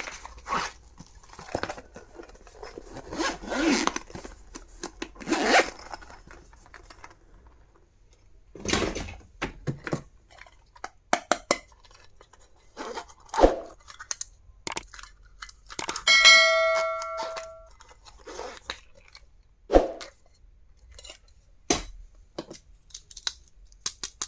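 Stationery items and their packaging being unboxed and handled: rustling, scraping, clicks and taps in irregular bursts. About two-thirds of the way in comes one ringing ding of several tones, lasting about a second and a half.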